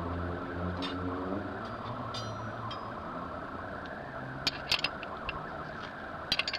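A low engine hum runs underneath, strongest in the first second and a half. Near the end come a few sharp metallic clinks from a steel box-end wrench being handled.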